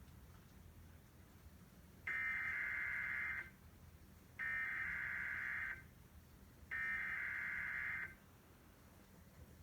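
Emergency Alert System SAME digital data tones played over a TV broadcast: three bursts of data tone, each about a second and a half long and about a second apart, the first about two seconds in.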